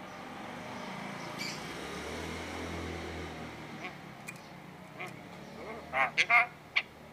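Javan myna giving about four short, loud, harsh calls in quick succession near the end, after a few faint clicks.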